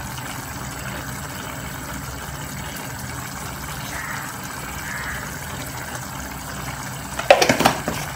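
Thick curry simmering in a metal saucepan on a gas burner: a steady bubbling hiss. A brief clatter comes near the end.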